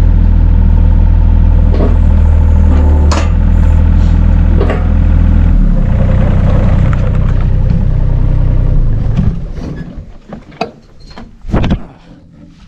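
A vehicle engine idling close by, steady and low, then shut off about nine seconds in; a few light knocks follow.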